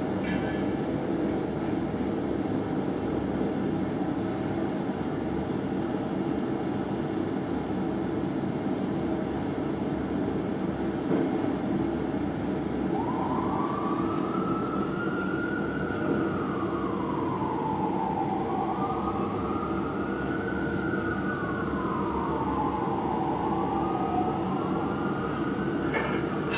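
Steady city traffic noise, then about halfway through a fire engine's Whelen siren starts a slow wail, rising and falling about three times.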